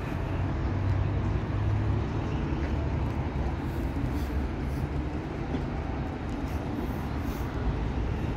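Steady low rumble of road traffic passing on a city boulevard.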